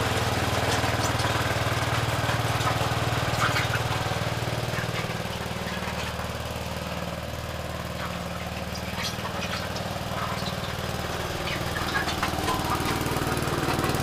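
Small garden-tractor engine running steadily under load as it drives a homemade screw-drive vehicle forward over dirt, with a few sharp knocks from the drive. The engine grows fainter in the middle and louder again near the end.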